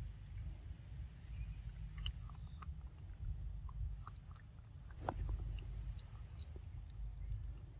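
Uneven low rumble of wind on the microphone, with scattered faint clicks from a pig-tailed macaque chewing papaya and a steady high-pitched whine.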